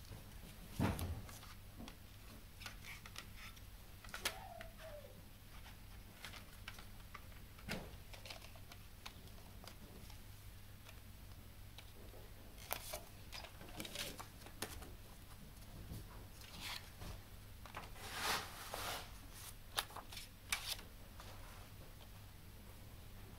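Handling of a plastic CD jewel case and its paper inserts: soft rustling of paper and scattered clicks and taps of the plastic case. A louder knock comes about a second in, and a longer rustle later on.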